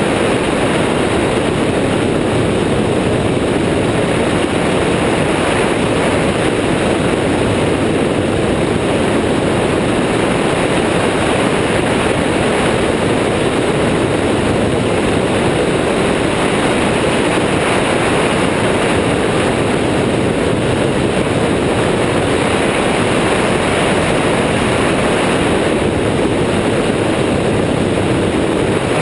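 Airborne XT Tundra weight-shift trike in steady cruising flight: the engine and pusher propeller drone under a constant rush of wind over the wing-mounted microphone, with no change in pitch or level.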